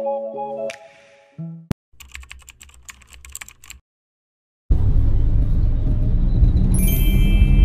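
Light mallet-percussion music ends in the first second, followed by a rapid run of keyboard-typing clicks and a moment of silence. Then comes a loud, steady low rumble of a moving car heard from inside the cabin, with a brief high tone near the end.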